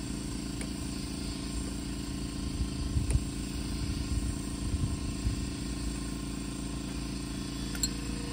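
Steady low mechanical hum underneath, with a few faint metallic clicks and soft knocks of a wrench and the brake caliper being handled.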